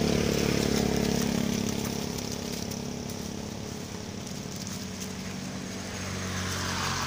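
An engine running, with a steady low hum that is loudest for the first two seconds, fades, and swells again near the end.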